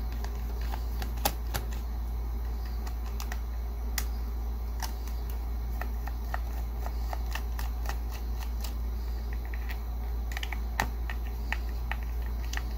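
Screwdriver with a Phillips bit turning out the small back-cover screws of a plastic CB microphone: irregular light clicks and ticks of the bit and screws against the housing, over a steady low hum.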